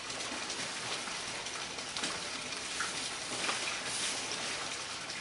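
Black plastic liner sheeting crinkling and rustling steadily as it is pulled and shifted over the frame of a float bed, with many small crackles.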